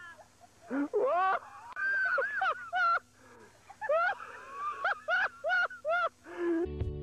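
A cat meowing over and over: about a dozen short, rising-and-falling meows with a few longer drawn-out ones. Music starts near the end.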